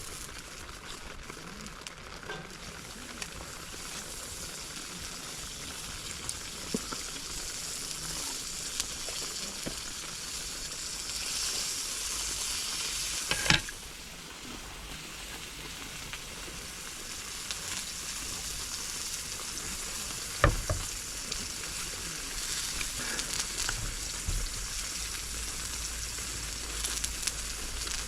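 Food sizzling and frying in a hot pan: a steady hiss with scattered small crackles. A sharp clack about halfway through, after which the sizzle drops a little, and another knock about two-thirds of the way in.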